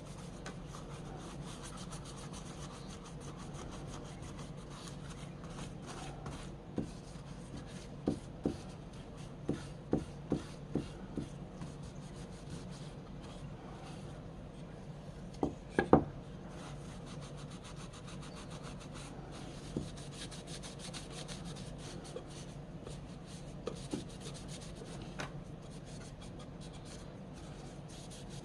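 Continuous hand rubbing and scraping strokes, as of abrasive cleaning or sanding on an antique hand saw, over a steady low hum. Sharp knocks come in a run about a quarter of the way in, and a louder pair comes just past halfway.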